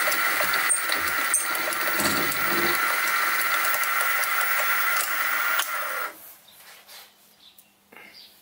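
Sieg SX2P mini-mill's spindle running with a 12 mm end mill cutting a metal block: a steady whine over cutting noise, which cuts off about six seconds in. A few faint clicks follow.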